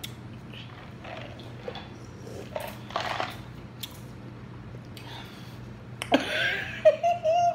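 A woman's faint breaths and mouth noises over a low steady room hum, then a louder breathy voice sound with a short held pitch near the end.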